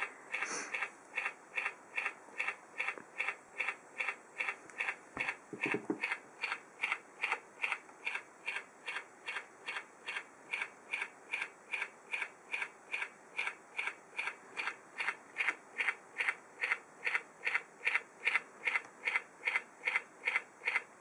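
Rubik's Touch Cube playing a short electronic sound for each move as it solves itself, repeating evenly about two and a half times a second.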